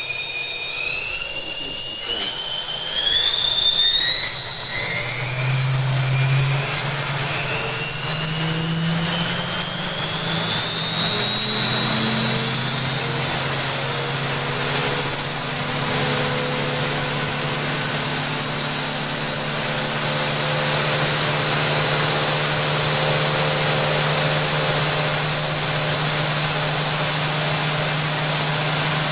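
Washing machine spinning up with an empty drum: a high motor whine climbs in pitch in steps over the first dozen seconds, then holds steady at full spin speed over a rushing hum.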